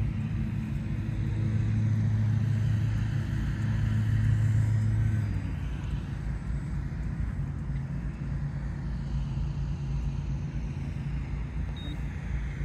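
Radio-controlled model airplane flying past overhead on its landing approach: a steady low propeller drone that cuts back about five and a half seconds in, over a constant low rumble.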